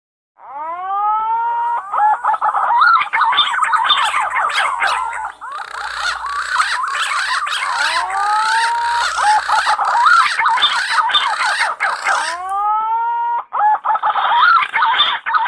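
Punai (green pigeons) singing: a rising whistled glide starting about half a second in and recurring twice more, each followed by a dense run of overlapping, wavering whistles.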